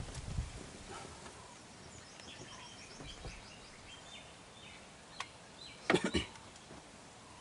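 Outdoor ambience with small birds chirping faintly in the background, and a short loud burst of noise about six seconds in.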